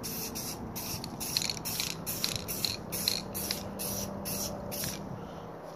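Aerosol can of Rust-Oleum satin spray paint hissing in a rapid series of short, light bursts, about three a second, that stop about five seconds in.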